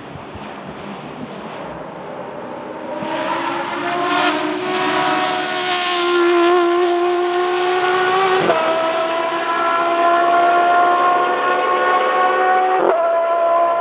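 Judd GV4 4.0-litre V10 of a Dallara SP1 LMP900 prototype race car under full throttle, passing close about six seconds in and pulling away. It makes two quick upshifts, one past halfway and one near the end, and the pitch climbs again after each.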